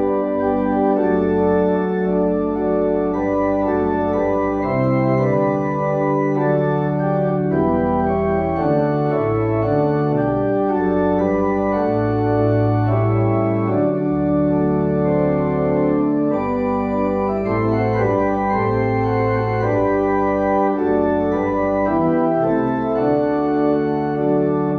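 Church organ playing a hymn: full held chords that change every second or so over a moving bass line.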